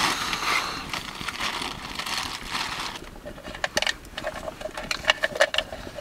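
A spoon scraping and knocking at peanut butter gone hard in the freezing cold. A rustling hiss comes first, then about halfway through a run of quick sharp scrapes and clicks.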